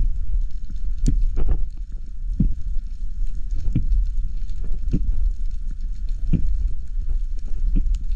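Steady low rumble of water moving against the camera, with a soft thump about every second and a half.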